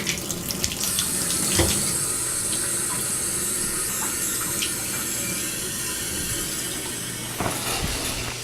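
Water running steadily from a tap, a constant hiss that shuts off near the end.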